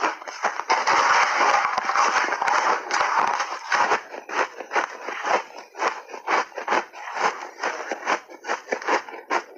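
Crunching of refrozen shaved ice being bitten and chewed: one long dense crunch over the first few seconds, then a steady run of chewing crunches, about three a second.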